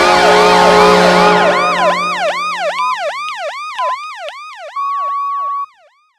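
Arena goal horn blowing a steady low chord together with a siren that sweeps up and down about two and a half times a second. The horn dies away two to three seconds in while the siren sweeps fade, and a steady higher tone sounds briefly before everything cuts off suddenly near the end.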